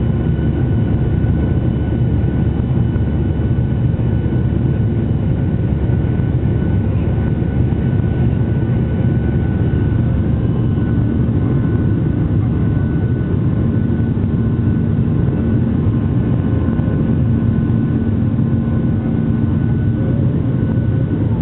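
Steady roar of a jet airliner's engines and rushing air heard inside the cabin in flight, with a thin steady whine above it.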